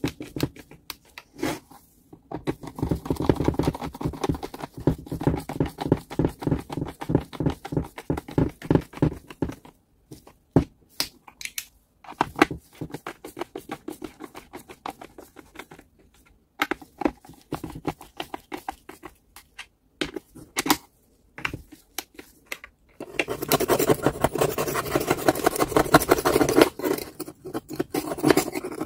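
Hand work on small metal parts: quick scraping and clicking strokes, sparser through the middle and denser and louder near the end.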